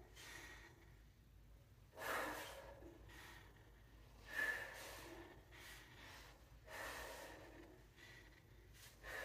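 Faint breathing from a person exercising with dumbbells: four short, sharp breaths about two and a half seconds apart, in time with the bent-over rows.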